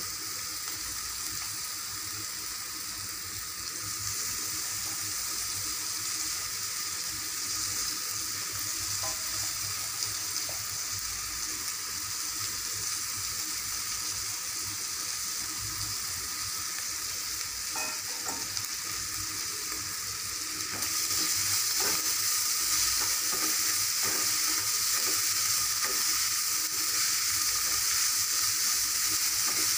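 Small dried fish frying in oil with onion masala in a kadai, a steady sizzle that grows louder a few seconds in and again about two-thirds through. A wooden spatula scrapes and clicks against the pan as the fish are stirred.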